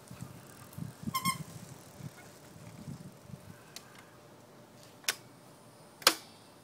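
eTour Compact folding electric bike rolling up and coming to a stop, with a brief high squeal about a second in. Then come two sharp clicks a second apart, the second the loudest, as the bike is handled.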